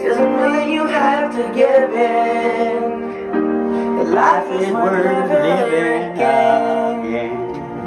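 Song playing: a voice sings drawn-out, sliding notes over sustained chords.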